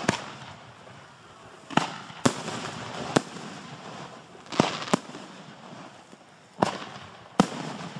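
Aerial display fireworks (shells and cakes) going off: about eight sharp bangs at irregular intervals, several in close pairs, each followed by a fading hiss.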